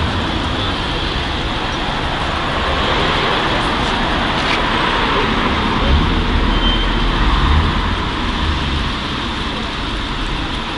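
Steady road traffic noise from cars passing on a city street, with low rumbling now and then and a louder stretch about six to eight seconds in.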